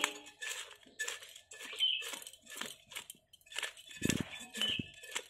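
Bhetki (barramundi) being scaled against a curved boti blade: quick rasping scrape strokes, about three a second, with the scales crackling off. A louder thump about four seconds in.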